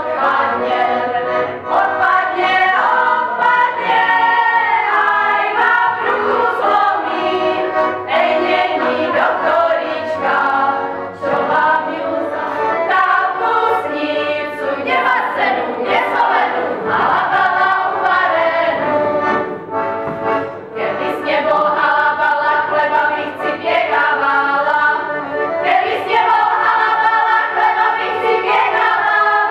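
A group of women singing a folk song together in harmony, with an accordion accompanying them.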